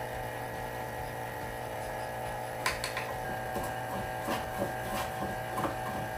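An oil-sealed vacuum pump runs with a steady hum, holding a board down on a vacuum pod. From a little past the middle, a hand plane takes a run of short strokes across the board, giving about a dozen quick scrapes and knocks.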